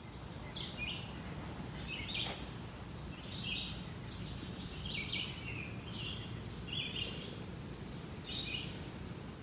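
A bird calling in woodland: a dozen or so short chirping notes, roughly one a second. A steady thin high tone and low outdoor background noise run beneath it.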